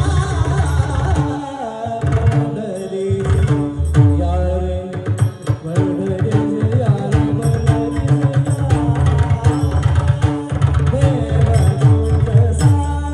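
Pakhawaj drum played in fast, dense strokes with deep bass booms, accompanying a singer's voice in devotional abhang singing.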